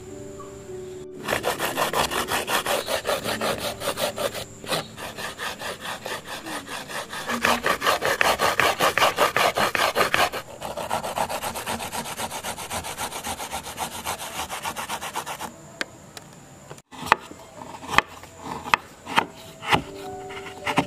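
Cassava grated by hand on a metal grater, quick rasping strokes about four a second with two short breaks. Near the end, a knife chops a block of palm sugar on a wooden board, a few sharp knocks.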